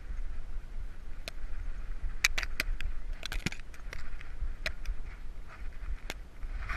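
Grass stems and leaves brushing and snapping against a GoPro mounted on a running dog's back, heard as scattered sharp clicks and crackles, thickest a couple of seconds in, over a continuous low rumble of the camera jostling.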